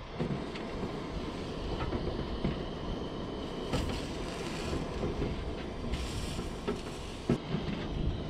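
Gas-fired soldering iron's burner running steadily while the iron is worked along a zinc gutter seam with a tin solder stick, with a few light ticks and scrapes of metal on the zinc.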